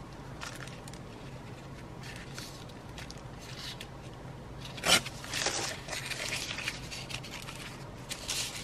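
White paper being torn against a plastic deckle-edge tear ruler: one sharp rip just before five seconds in, running on as a short rasp for about half a second, with light paper rustling before and after.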